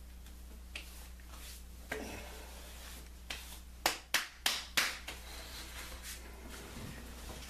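Open hands slapping witch hazel onto a freshly shaved face: a few soft pats, then four sharp slaps in quick succession about four seconds in.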